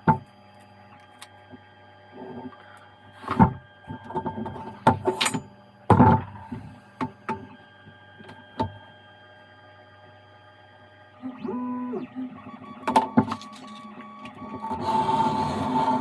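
Leather and hand tools being handled on a workbench, with scattered knocks and taps over a steady electrical hum. A small motor whirs briefly, rising then falling in pitch, about eleven seconds in. Near the end comes a spell of rustling and scraping.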